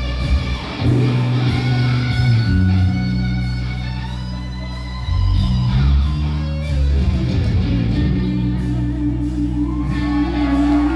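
Live rock band playing: an electric guitar solo with long held notes over bass and keyboards.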